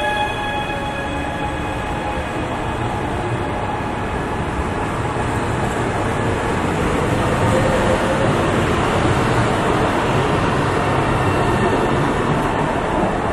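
Trenitalia ETR 425 'Jazz' electric multiple unit moving along the platform, a steady rumble of wheels and running gear on the rails. A whine from the traction equipment fades out in the first second or two.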